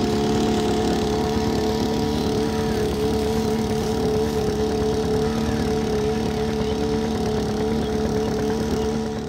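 Floating water pump's small engine running steadily at a constant speed while it pumps pond water out through a hose.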